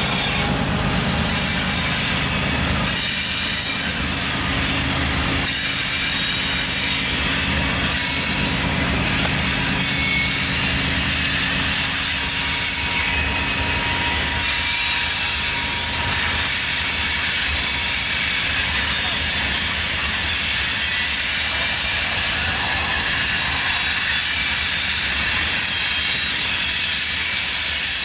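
Loaded covered hopper cars of a CSX freight train rolling past: a steady rumble and hiss of steel wheels on the rail, with a thin wheel squeal through the middle.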